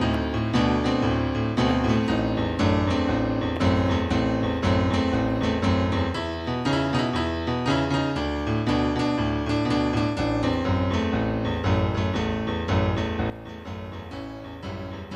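Instrumental background music with piano playing a steady run of notes; it drops clearly in level a couple of seconds before the end.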